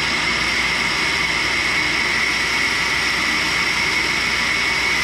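1942 Cincinnati universal tool and cutter grinder running with its thin wheel sawing into a bar of raw carbide: a steady mechanical whine and hiss that does not change.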